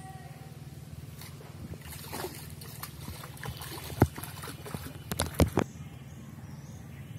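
A hooked fish thrashing at the surface of a pond, splashing and sloshing the water in a run of sharp splashes, the loudest about four seconds in and again about five and a half seconds in.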